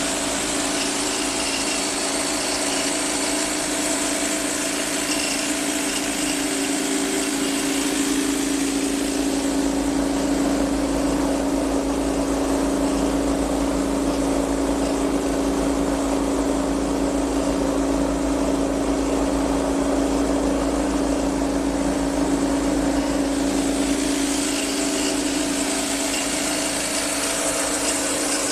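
Electric 6N80 rice mill running steadily while milling paddy: a constant hum with a hiss over it that eases in the middle stretch and comes back near the end.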